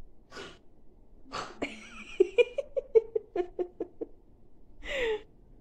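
A young girl's high squeal followed by a quick run of short giggles, about five a second, with breathy sounds near the start and the end.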